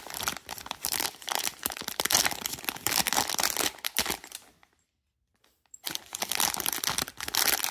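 Thin plastic packaging bags crinkling and rustling as a blind-box figure is unwrapped by hand. The crinkling stops for about a second just past the middle, then starts again.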